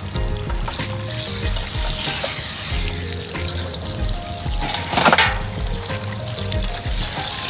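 Water from a garden hose spraying and splashing onto lobsters and into a steel pot of water as they are rinsed.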